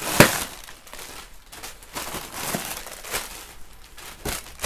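Plastic packaging crinkling and rustling as hands rummage through a cardboard box of bagged parts and air-cushion wrap. There is a sharp crackle about a quarter second in, then scattered softer crinkles and taps.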